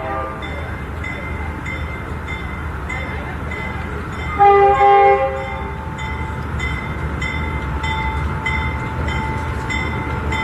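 Diesel locomotive rolling slowly into the station, its engine rumbling low, with two short horn blasts about four and a half seconds in. A bell rings steadily at about two strokes a second throughout.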